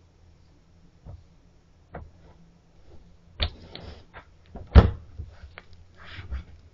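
A black bear shoving and tipping a slatted box over on grass: two light knocks at first, then a run of knocks and scrapes, the loudest a single heavy thud about five seconds in.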